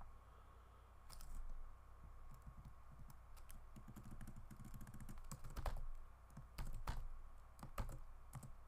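Computer keyboard typing in irregular runs of key clicks, with a few louder key presses in the second half.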